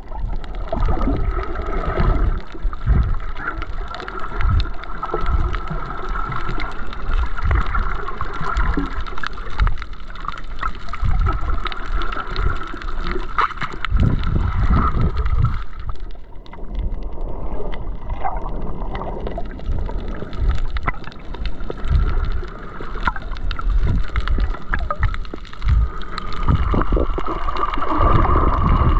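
Muffled water noise heard underwater while snorkeling: continuous gurgling and sloshing with many irregular low thumps from the swimmer's movement in the water.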